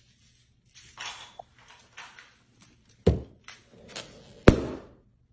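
A dog pawing and biting an inflated rubber balloon: short rubbery squeaks and scuffs, broken by two loud sharp smacks about three and four and a half seconds in, the second the loudest.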